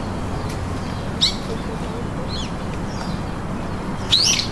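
Birds chirping in short, high calls: one about a second in, a fainter one a little later and the loudest near the end, over a steady background noise.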